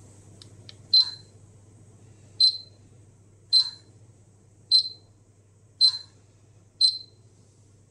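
Polimaster PM1703-GNA dosimeter's piezo buzzer giving six short, high beeps a little over a second apart, after two faint clicks.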